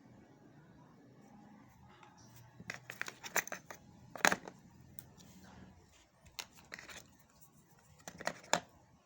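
Packaging being handled: crinkling and tearing with sharp clicks in three short clusters, the loudest about four seconds in.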